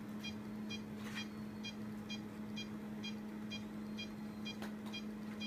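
Surgical patient monitor giving its pulse beep: a short high beep about twice a second, in step with the anaesthetised dog's heartbeat, over a steady low hum.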